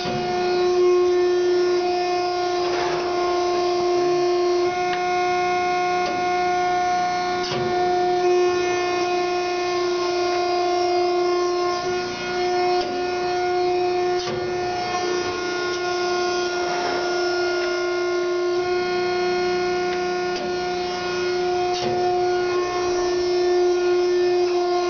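Hydraulic pump of a 1993 Wysong PH100X96 100-ton press brake running under power: a steady whine with a strong low tone and a string of higher overtones, and a few faint clicks.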